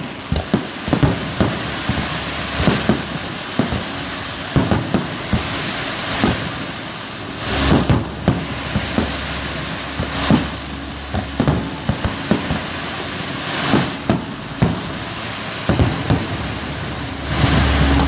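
Fireworks display: aerial shells bursting with sharp bangs at an irregular pace, sometimes several in a second, over a steady crackling hiss. Near the end a heavier, longer boom swells up.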